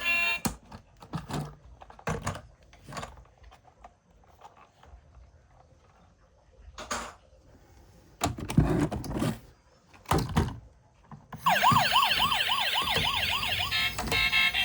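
A few scattered clicks and knocks, then a toy emergency vehicle's electronic siren warbling rapidly, about four wails a second, starting near the end.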